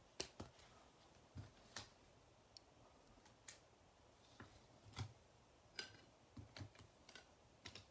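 Faint, scattered clicks and taps of rigid plastic toploader card holders being picked up, stacked and set down on a tabletop, about a dozen at uneven intervals.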